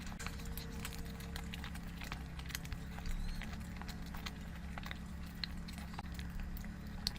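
A person eating curry, with irregular wet chewing and mouth-smacking clicks over a steady low hum.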